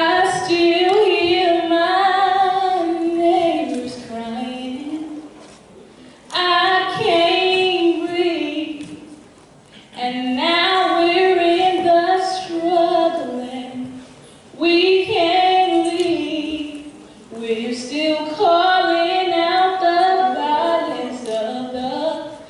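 A woman singing solo and unaccompanied into a microphone over a hall's sound system, in five long held phrases with short breaths between them.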